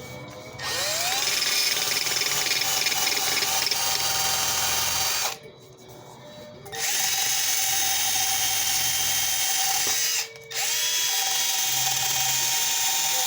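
Electric drill spinning a cleaning wheel against cast iron, scouring the surface of a cast iron tea kettle. It runs in three stretches, speeding up with a rising whine each time it starts, with a pause about five seconds in and a brief stop about ten seconds in.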